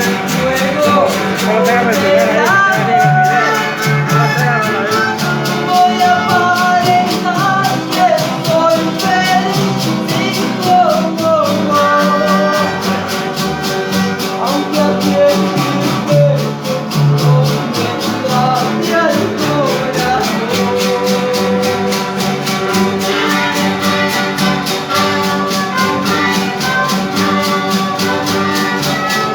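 A Latin conjunto band playing: a wavering lead melody over guitar and bass, with shaker percussion keeping a steady fast beat.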